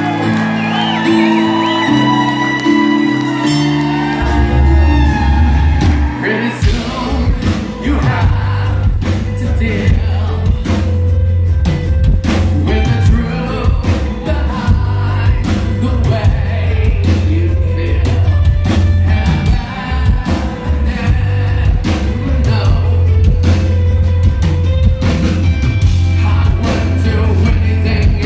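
Live rock band in concert: a sustained, held-note intro with crowd shouts, then about four seconds in a heavy low bass comes in. A couple of seconds later the drums join, and the full band plays on loudly with singing.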